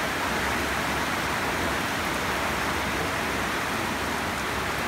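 Heavy rain pouring down on a road and trees: a steady, even hiss of a hard downpour.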